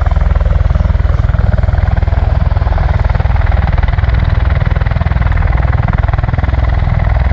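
U.S. Marine Corps MV-22 Osprey tiltrotors running on the ground, their turboshaft engines driving the proprotors with a steady, rapid, even pulsing of the blades.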